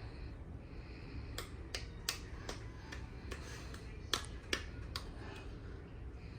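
Sharp clicks and taps, about ten of them over three or four seconds in an uneven pattern, from spice containers and utensils being handled while measuring spices into a bowl. A low steady hum underneath.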